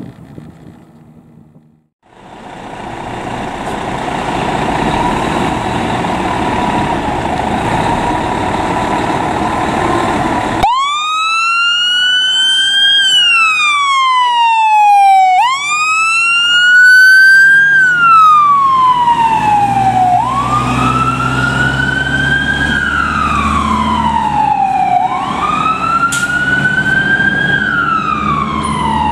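Fire engine siren sounding a wail: a quick rise in pitch, then a slow fall, repeating about every five seconds over the truck's engine rumble. Before the siren starts, about ten seconds in, there is a steady loud rushing noise that cuts off abruptly.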